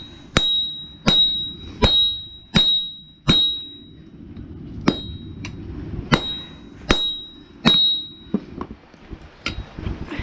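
Hammer blows on hot mild steel on an anvil, each strike ringing briefly: a run of five strikes, a short pause, then four more, followed by a few lighter taps near the end.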